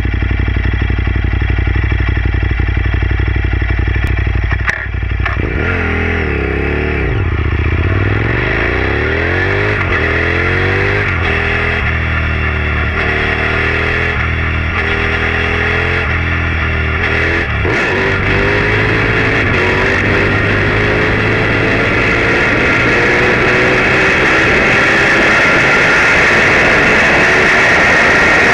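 KTM supermoto motorcycle engine heard from a low side-mounted camera: idling steadily, then pulling away and accelerating through several gear changes, then a long steady climb in revs. Wind rush grows louder with speed near the end.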